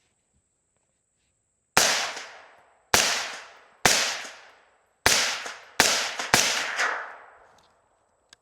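Suppressed AR-15 rifle firing 5.56 rounds through a 30-calibre suppressor: six shots at an uneven pace, the last three coming faster. Each report is a sharp crack that trails off over about a second.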